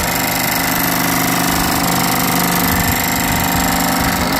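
Electric motor and hydraulic pump of a hydraulic-cylinder brick press running with a steady hum and a fast mechanical rattle.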